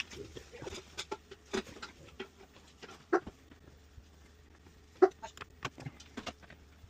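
Irregular clicks and taps of hands and tools at work, with two sharper clicks about three and five seconds in.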